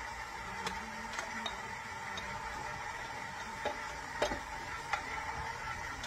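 Stand mixer running steadily at low speed, its paddle mixing flour into banana bread batter, with a few light clicks and taps scattered through the hum.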